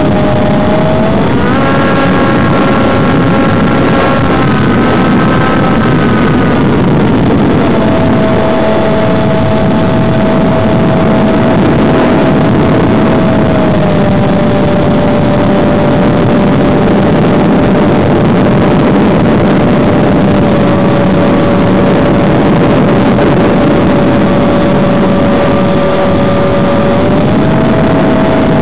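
Electric motor and propeller of an FPV model plane in flight: a steady whine that shifts in pitch a few times as the throttle changes, rising about a second and a half in, under loud rushing air noise.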